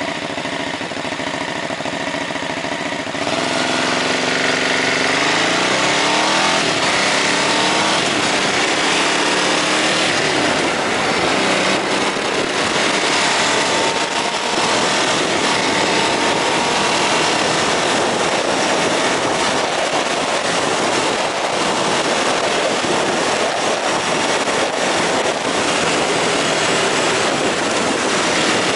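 Ducati Hypermotard 939's L-twin engine with an Akrapovič exhaust, running low at first, then pulling away about three seconds in with its pitch rising as it accelerates. It then cruises under heavy wind rush over the microphone.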